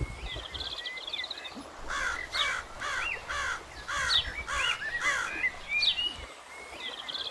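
Birds calling outdoors: a series of short, harsh repeated calls about twice a second through the middle, with higher trilling calls around them.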